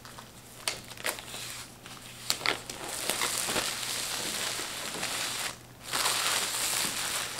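Clear plastic shrink-wrap being torn and peeled off a boxed laptop, crinkling and crackling. A few sharp crackles come first, then a longer stretch of steady crinkling that breaks off briefly near the end and starts again.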